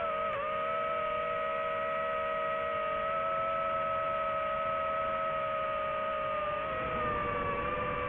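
Quadcopter drone's propellers whining in steady flight: a held, even pitch that dips slightly near the end.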